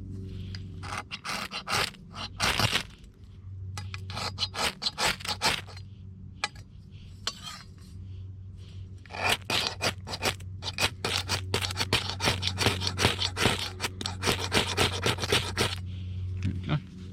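A knife scraping shavings off a fatwood stick for fire tinder, in quick repeated strokes that come in three runs with short pauses between.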